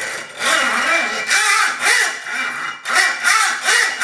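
Hand hacksaw scraping back and forth on a hardened steel square key, about two strokes a second; the blade skates over the hardened steel without cutting into it.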